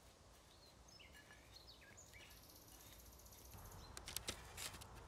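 Near silence. A few faint bird chirps come about a second in, and a few soft taps and rustles follow near the end.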